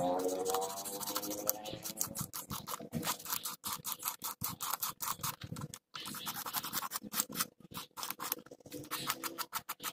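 Rapid, irregular scratching and rubbing of fingers and a small tool against the back of a car instrument-cluster circuit board and its bulb sockets, with a brief squeak right at the start.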